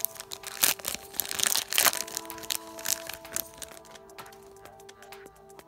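Foil trading-card booster pack wrapper crinkling and crackling as it is handled and the cards are pulled out, dense for the first three seconds or so and then dying down. Steady background music plays underneath.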